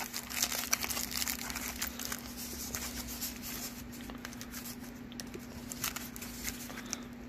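Packaging crinkling and crackling as it is handled, in irregular bursts, busiest in the first few seconds.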